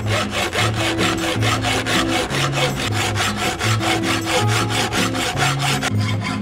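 Hacksaw cutting through rusty 3.8 mm-thick steel angle iron held in a bench vise: a fast, even back-and-forth rasping of the blade on the metal, several strokes a second.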